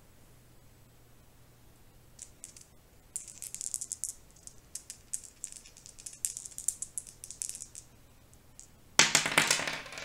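Two dice rattling and clicking together in a shaken hand, then thrown about 9 seconds in onto a wooden tabletop, where they clatter and tumble loudly for about a second.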